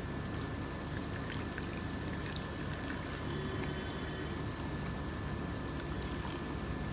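Hot herbal kadha (spiced decoction) poured through a strainer, a steady trickle of liquid, over a faint steady hum.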